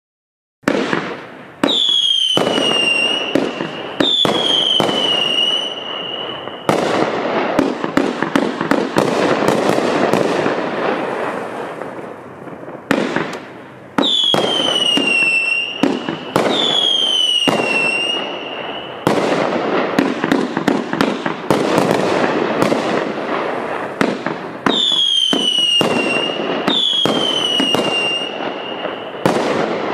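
500-gram aerial repeater firework cake firing its shots, starting about half a second in: repeated sharp launch and burst reports, with pairs of falling whistles three times over, and long stretches of dense crackling between the volleys.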